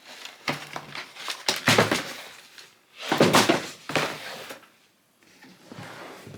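Cardboard shoe box being handled and moved, a few knocks and scrapes of the box and its lid, the loudest about two and three and a half seconds in.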